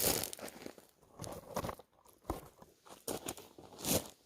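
Irregular crinkling and crunching rustles, as of something being handled, loudest right at the start and again near the end.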